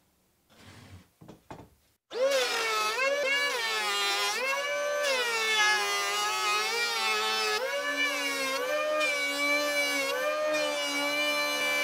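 Electric hand planer switching on about two seconds in and planing a wood slab: a loud motor whine whose pitch sags and recovers again and again as the blades bite into the wood, over the rough noise of the cut. Before it starts there are a few faint handling sounds.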